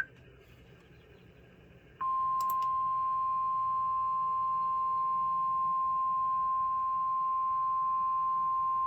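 NOAA Weather Radio warning alert tone: a single steady 1050 Hz pitch that switches on abruptly about two seconds in, after faint hiss, and holds unbroken. It signals that an emergency warning broadcast, here a severe thunderstorm warning, is about to follow.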